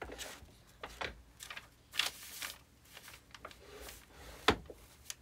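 Sheets of paper being handled and shuffled on a table, a series of short rustles and light taps, with one sharper knock about four and a half seconds in.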